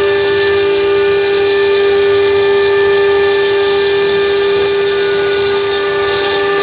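5.5 kW water-cooled spindle of a stone CNC engraving machine running with a steady, high, constant-pitch whine while its bit cuts into a stone slab under a water spray.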